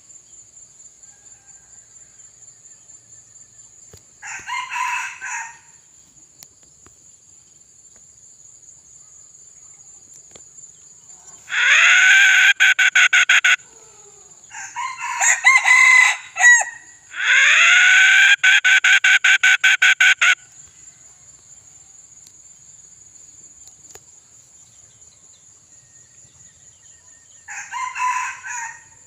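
A red junglefowl decoy rooster crowing: two long, loud crows around the middle, each opening with a rising sweep, with a rougher call between them and short calls early and near the end. The keeper calls its voice mid-pitched. A steady high insect drone runs underneath.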